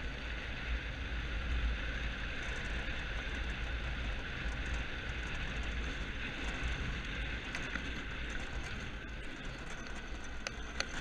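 Engineless soapbox kart rolling downhill on a concrete road: a steady noise of small tyres on concrete and a rattling chassis, with wind rumbling on the kart-mounted camera microphone. A couple of clicks come near the end.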